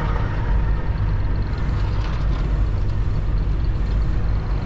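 Semi truck's diesel engine running steadily at low speed, a constant low drone heard from inside the cab.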